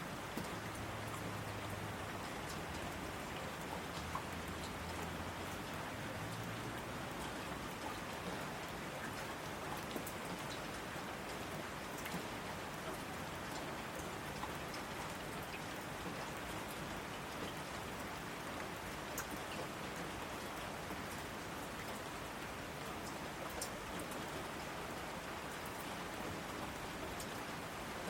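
Steady rainfall, an even hiss with scattered sharper ticks of individual drops striking a surface.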